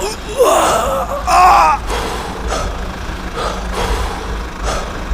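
A cartoon character's voice crying out twice in short, high-pitched gasps, followed by fainter short vocal sounds over a steady low hum.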